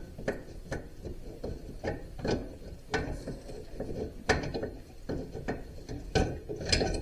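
Irregular metal clicks and clunks of a new rear axle housing being turned and worked into place in the frame of a Polaris Trail Boss 330 ATV.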